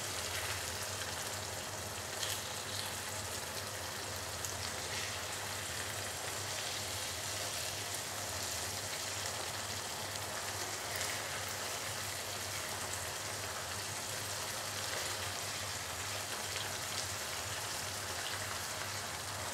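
Masala gravy sizzling steadily in a frying pan, with a few faint taps from the spatula as the boiled eggs are turned.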